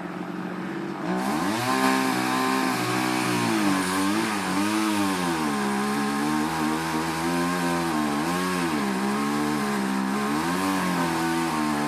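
Two-stroke chainsaw running, quieter at first and then louder about a second in, its pitch repeatedly dipping and rising as it cuts into the trunk of the tree being felled.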